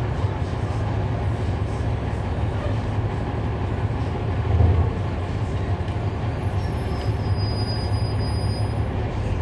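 Cabin sound aboard a NABI 40-SFW transit bus: its Cummins ISL9 diesel engine running with a steady low rumble, with a brief louder swell about halfway through.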